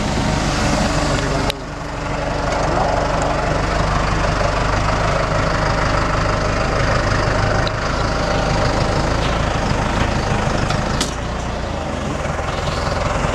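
Tractor engine running steadily, heard close up from on board, with a brief click and dip about a second and a half in.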